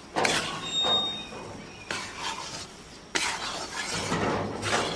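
A metal spatula scrapes and stirs wheat flour being roasted in a steel kadhai. It makes irregular scraping strokes against the pan, roughly one a second.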